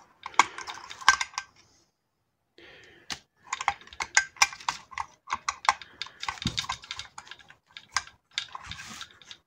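Irregular quick clicks and light metallic taps of small chainsaw engine parts, such as the piston and crankshaft, being handled and turned over on a workbench, with a brief silent break about two seconds in.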